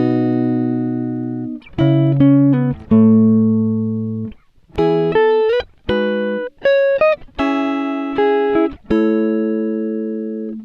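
Background music: slow chords, each struck and left to ring out and fade, with short breaks between them.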